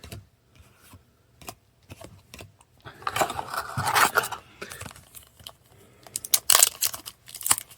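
Yu-Gi-Oh! trading cards and a foil booster-pack wrapper being handled: scattered clicks and rustling, a longer crinkling, tearing stretch about three seconds in, and a quick run of sharp crackles near the end.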